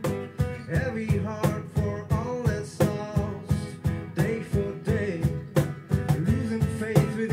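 A man singing with a steel-string acoustic guitar strummed in a steady rhythm.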